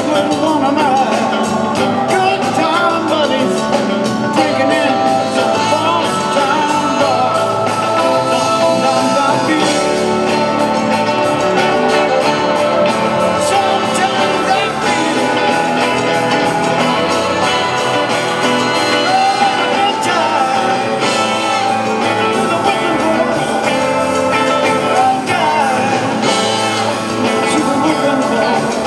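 Southern rock band playing live in a large hall: electric guitars, Hammond B-3 organ, bass and drums, with a male lead vocal over them.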